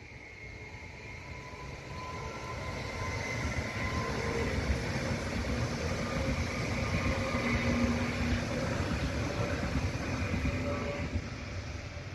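Electric multiple-unit passenger train passing over a level crossing. It grows louder over the first few seconds, runs past steadily, and fades near the end as it moves away.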